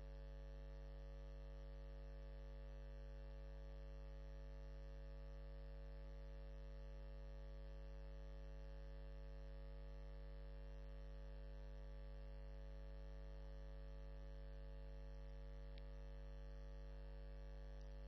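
Steady low electrical mains hum, a buzz with a stack of overtones and faint hiss, unchanging throughout.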